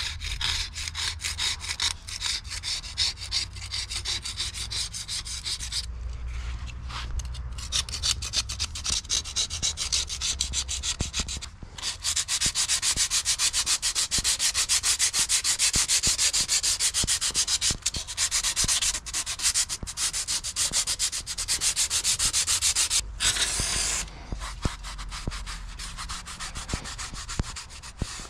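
Hand scrubbing on a hard surface: fast, even back-and-forth strokes, several a second, with short breaks about six and twelve seconds in and again near the end. The strokes are most regular and loudest through the middle stretch.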